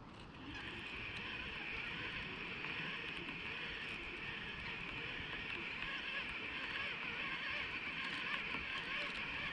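Fishing reel being wound in at a steady pace, a continuous whirr as the lure is retrieved.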